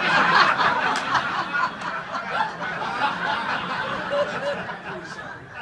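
Audience laughing, breaking out all at once and dying down over a few seconds.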